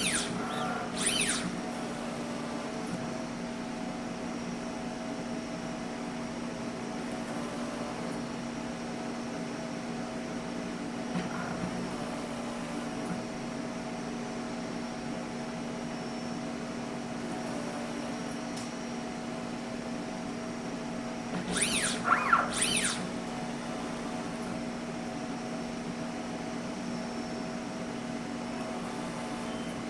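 Automatic soldering robot running with a steady machine hum, broken twice by short, louder bursts of high-pitched, sweeping whirring: once at the start and once about two-thirds of the way through.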